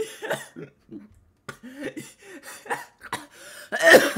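A man's stifled laughter with a mouthful of water: short choppy vocal bursts with gaps between them, then a loud cough near the end as he doubles over.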